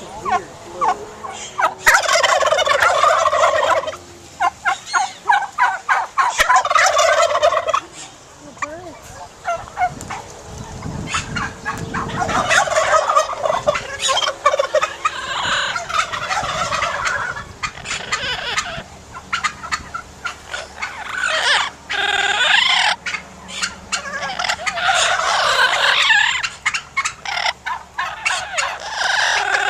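Heritage-breed turkeys gobbling, with a loud burst of gobbles every few seconds and quieter stretches between them.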